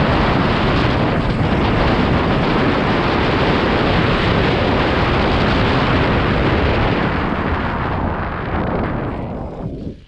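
Heavy wind rushing over the action camera's microphone on a fast mountain-bike descent, mixed with the knobby tyres rolling over the dirt and gravel trail. The noise fades over the last two seconds.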